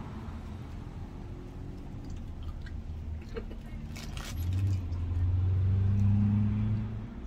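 A motor vehicle's engine running close by: a steady low hum that grows clearly louder about four and a half seconds in and falls back near the end. A few light clicks and rustles sit over it in the middle.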